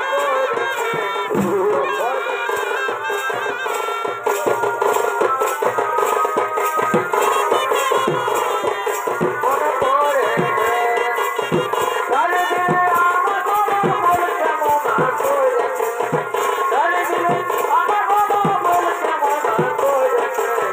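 Live Purulia Chhau dance accompaniment: a shehnai plays a wavering, bending melody over steady beats of dhol and dhamsa drums, about two strokes a second.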